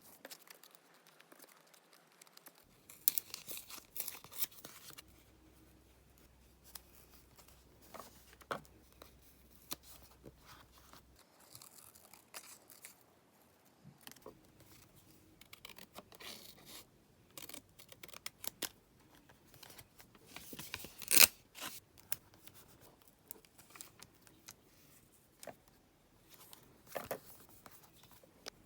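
Paper craft work: scissors cutting paper, with paper handling and small taps in short, irregular bursts. The loudest snip or rustle comes about three quarters of the way through.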